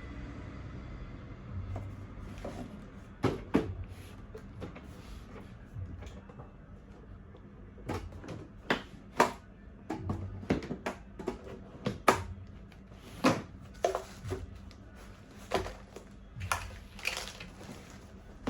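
Baby high chair parts being handled and fitted together during assembly: a string of irregular sharp clicks and knocks, some loud, over a low background hum.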